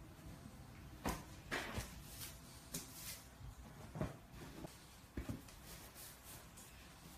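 A Bullmastiff's paws on a tile floor and against a small padded pet bed as he climbs in and turns around: faint, scattered taps and rustles, about one or two a second.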